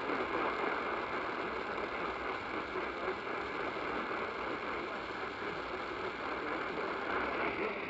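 Steady hiss of radio static from a weather radio receiver.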